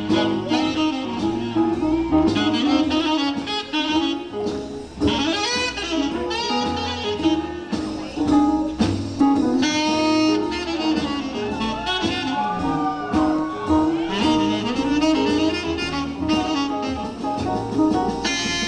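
Swing jazz music playing for the dance, with a saxophone carrying the melody over a steady band accompaniment.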